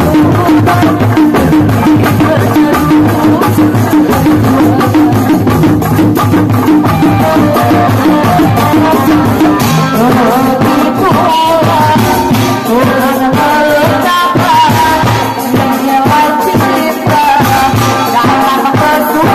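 Loud live music of a Sundanese reak troupe: dense drumming and rattling percussion, with a wavering melody line coming in about halfway through.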